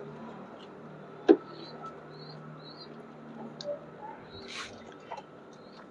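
Faint, high-pitched bird chirps repeating about twice a second, with one sharp click about a second in and a brief rustle past four seconds.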